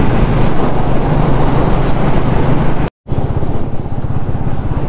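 Motorcycle engine running steadily while riding, with a haze of wind and road noise over it. The sound cuts out for an instant about three seconds in, then resumes.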